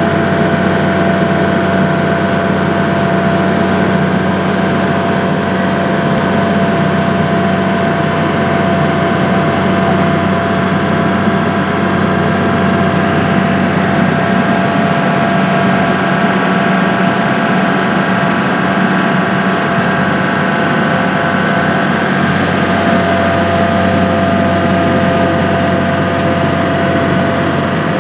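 Ferry boat's engine running steadily under way, a constant drone heard from on board.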